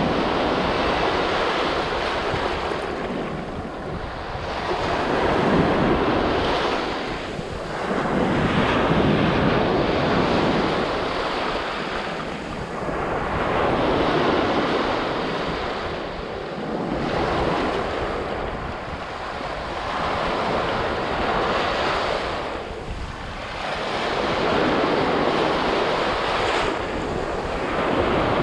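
Sea surf, waves washing in one after another, each swelling and fading over a few seconds, with wind rumbling on the microphone.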